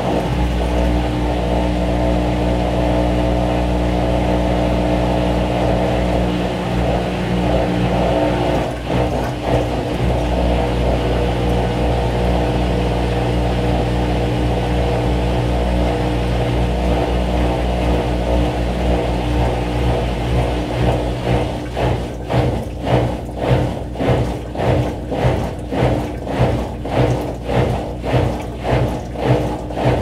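GE Spacemaker WSLS1100 washing machine running with a steady motor hum made of several tones, picked up partly through a contact mic on its front panel. About two-thirds of the way through, the sound turns into a regular pulsing of roughly one and a half beats a second.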